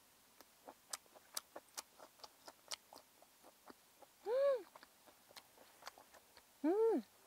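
A person chewing a bite of cola-braised boiled pork, with a run of small wet mouth clicks. About four seconds in and again near the end come two short hummed "mmm" sounds of enjoyment that rise and fall in pitch.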